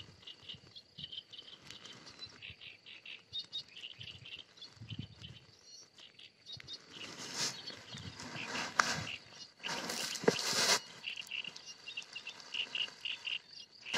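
Pondside ambience of short high chirps coming in quick runs, over a faint steady high tone. About seven seconds in, a few seconds of louder rustling noise come in.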